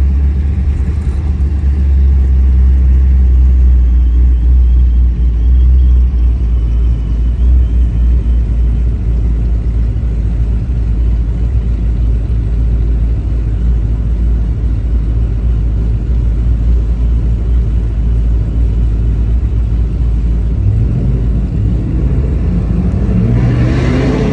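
Car engine rumbling steadily, then revving up with a rising pitch near the end.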